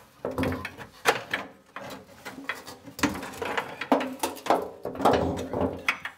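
Steel fuel-tank strap being handled and fitted under a car, scraping and clanking against the tank and underbody in an irregular string of knocks and scrapes.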